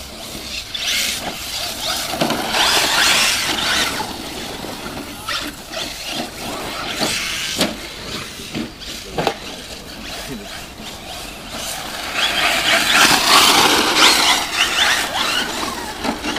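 Radio-controlled car driving over a dirt track: motor whining and tyres scrabbling over the dirt, with short clicks and knocks. It is loudest twice, around two to four seconds in and again from about twelve to fifteen seconds.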